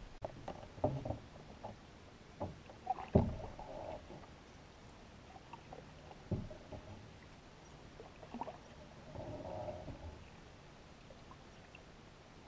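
Canoe being paddled: scattered hollow knocks on the canoe's hull, the loudest about three seconds in, and two spells of water swishing and dripping from paddle strokes.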